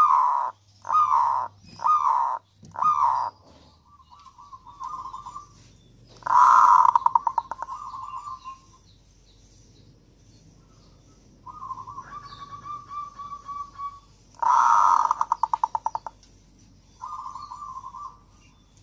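Zebra dove (perkutut) cooing. It gives four short loud coos about a second apart at the start, then quieter rapid rolling trills, with louder coo phrases about six and fourteen seconds in and a short pause in between.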